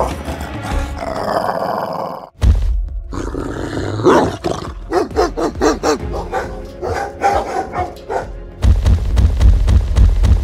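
Cartoon sound effects over background music: animal-like roaring and growling, then a deep low rumble in the last couple of seconds.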